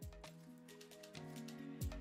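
Background music: held synth notes over deep kick-drum beats.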